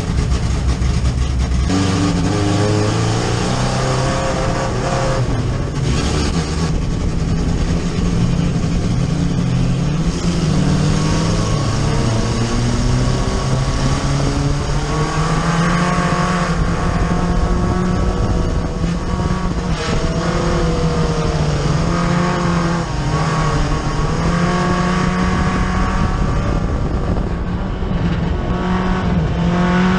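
Four-cylinder dirt-track race car engine heard from inside the cockpit, revving up and easing off again and again as the car is driven around the track.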